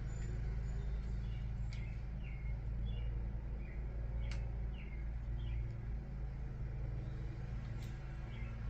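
A steady low hum with small birds chirping throughout. Three sharp clicks come a few seconds apart, from a torque wrench tightening the cam-cap bolts on a 2JZ head.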